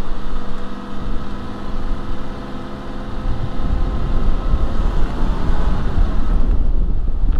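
Campervan engine running as the van drives slowly along a gravel track, a steady hum at first. About halfway through, a louder low rumble of tyres and wind noise builds over it.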